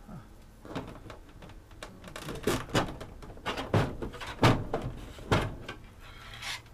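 The white plastic interior trim frame of a van's roof fan being worked loose from the ceiling opening and pulled down: a run of irregular plastic knocks and scrapes, the loudest few in the middle, with a short scraping rub near the end.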